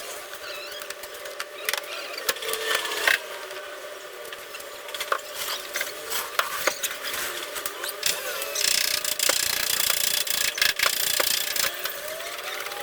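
Hand-tool body work on a car panel: scattered sharp taps and clicks with short squeaky rubbing. A stretch of harsher scraping or rubbing runs from about two thirds of the way in to near the end.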